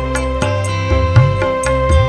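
Music played loud through a sound system: a held, slightly wavering lead melody over deep, sliding bass notes and regular drum hits.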